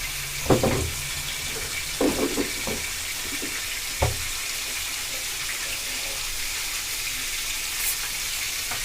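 Mutton steak frying in hot oil in a pan, giving a steady sizzling hiss, with a few brief faint knocks near the start and about four seconds in.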